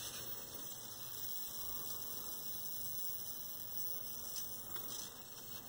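Admiral PK1369 vacuum-tube black-and-white television running, giving off a steady electrical hum with a high hiss over it, and a couple of faint clicks near the end.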